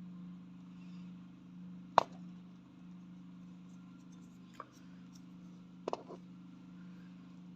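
A sharp, loud click about two seconds in, then a faint click and a quick double click later on, over a steady low hum.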